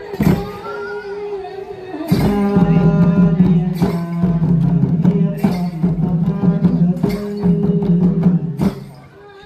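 Traditional Khmer Trot dance music: drum strokes over sustained low instrumental tones. The music stops shortly before the end.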